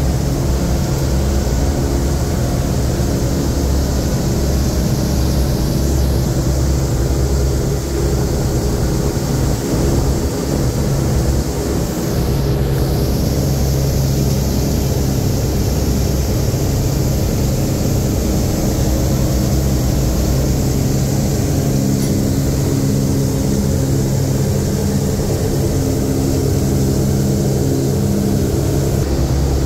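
Four Wright R-3350 radial engines and propellers of a B-29 Superfortress droning steadily in flight, heard inside the aircraft: a deep, even hum of several steady tones with a rush of airflow hiss above it.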